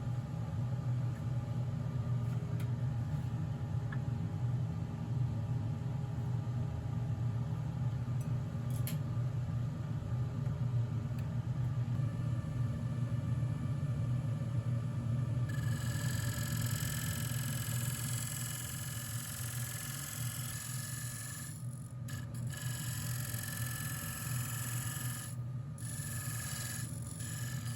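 Wood lathe running with a steady low hum; about halfway through a brighter scraping hiss joins in.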